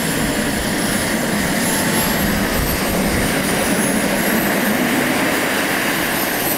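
Radio-controlled model aircraft engine running on the ground: a steady rushing noise with a thin high whine that slowly rises and falls in pitch.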